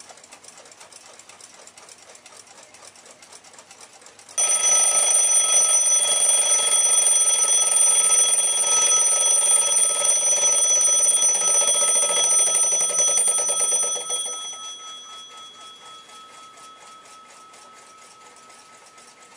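1906 Western Clock Company pin-lever alarm clock ticking faintly, then about four seconds in its alarm bell starts ringing loudly and suddenly. It rings steadily for about ten seconds, then fades away, leaving the faint ticking.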